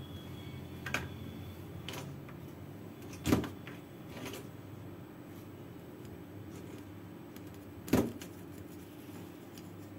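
Tools being handled on a workbench while flux goes onto a circuit board: a few short knocks and taps, the loudest about three seconds in and just before eight seconds, over a steady low hum.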